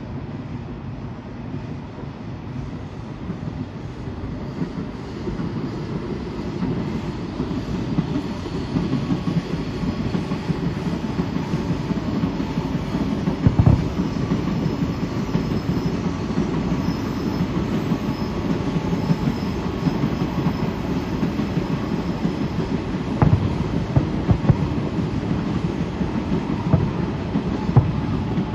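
An aerial fireworks barrage: a dense, continuous crackling and rumbling that builds over the first several seconds, with a few louder sharp bangs from shells bursting, about three of them, in the middle and near the end.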